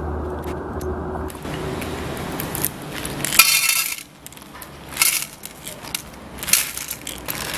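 Dry cat food kibble shaken out of a plastic bottle into a small tin can, rattling in three short bursts, the first one the loudest.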